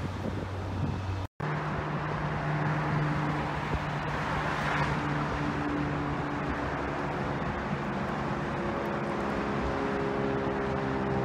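Propeller aircraft passing overhead: a steady engine drone with a low hum and several overtones, over a broad rushing noise that swells around the middle. It begins suddenly after a brief dropout a little over a second in; before that there is wind noise on the microphone.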